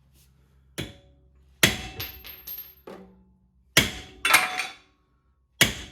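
Hammer blows on the end of a Chrysler 8.25 rear axle's pinion, with the nut threaded back on, to drive the stuck pinion out of the housing: five strikes at uneven intervals, each with a short metallic ring.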